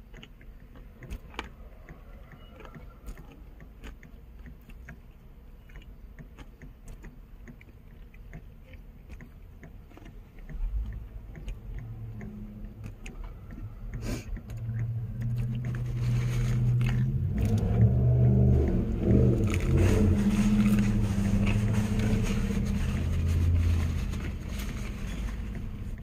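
Quiet chewing with small clicks. From about ten seconds in, a vehicle engine close by grows louder, a low hum that shifts in pitch, and is loudest in the second half.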